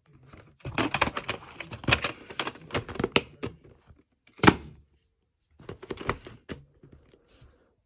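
VHS tape cases being handled: a run of plastic clicks, rattles and rubbing as a clear plastic case is opened and boxed tapes are picked up and moved, with one sharp knock about four and a half seconds in and a few more clicks after it.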